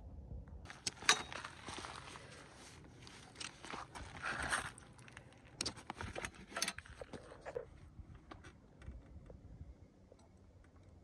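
Buckles and nylon straps of a hitch-mounted Mockins cargo bag being handled and unfastened: a run of sharp clicks and fabric rustling, loudest about a second in, thinning out after about seven seconds.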